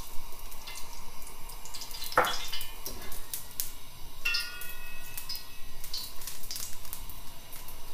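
Oil heating in a wok on a gas burner, crackling with many small irregular pops and ticks.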